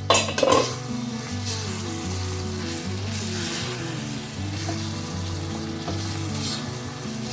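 Thick chicken masala with methi and dill sizzling in an iron wok as it is stirred, with a sharp metal clatter right at the start.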